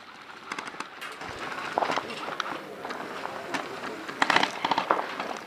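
Airsoft guns firing: scattered rapid pops, with a dense burst of snaps a little after four seconds in.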